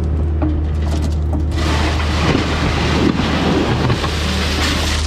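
Heavy equipment engine running steadily with a low hum. From about a second and a half in, a loud rushing, rumbling noise joins it for about four seconds.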